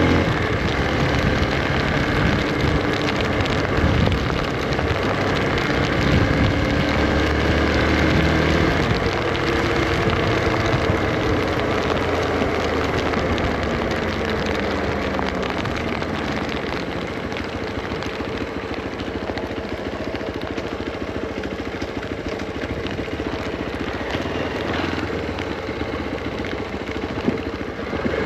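Hero Xpulse 200 single-cylinder motorcycle engine running on the move, its pitch rising and falling with throttle changes. It settles to a steadier, slightly quieter note in the second half.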